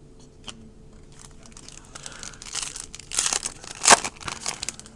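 Wrapper of a 2007 Upper Deck Masterpieces baseball card pack being torn open and crinkled. A few light clicks come first, then crinkling from about two seconds in, with a sharp rip near the end.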